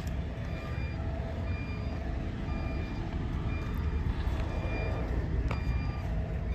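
Reversing alarm on heavy mine machinery: short high beeps repeating at a steady pace, about one a second, over a steady low rumble.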